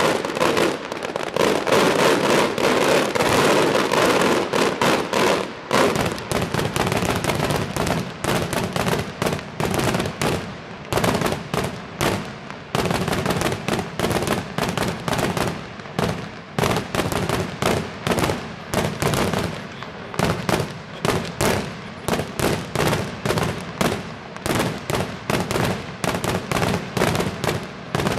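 Maltese daytime fireworks going off in a long barrage. The first few seconds are dense, unbroken crackling and banging, which then gives way to rapid separate bangs several a second that stop suddenly at the end.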